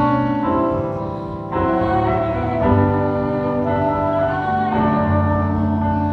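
Instrumental worship music on piano and organ: slow, held chords that change every second or so.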